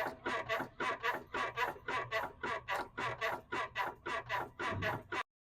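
Vehicle suspension squeaking like an old bed, a rhythmic run of about four squeaks a second that cuts off suddenly near the end. It is the sign of worn sway bar end links.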